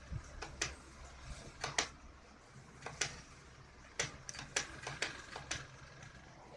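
A scattering of short, sharp clicks and light taps at irregular intervals, most frequent between about four and five and a half seconds in, over a faint low hum.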